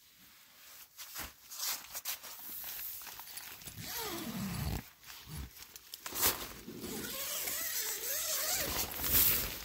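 Nylon tent fabric and plastic groundsheet rustling and crinkling as someone shifts and moves about inside a tent. There is a short falling vocal sound about four seconds in and a wavering one near the end.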